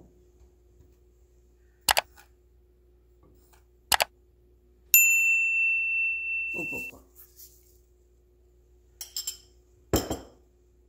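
Subscribe-button sound effect: two sharp mouse clicks, then a single bell ding that rings out for about two seconds. Near the end come a few clinks and a knock.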